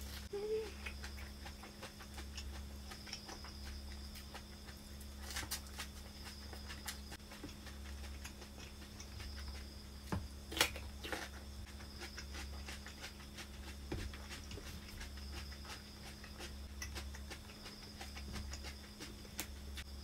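Close mouth sounds of someone eating raw vegetables: chewing herb leaves and biting and crunching a raw cucumber, with scattered sharp crunches, the loudest about halfway through. A steady low hum runs underneath.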